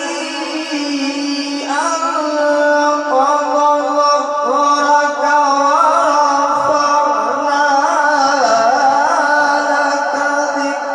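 A qari's melodic Quran recitation: one voice holding long, ornamented notes with no pause, amplified through a microphone, stepping up in pitch about two seconds in.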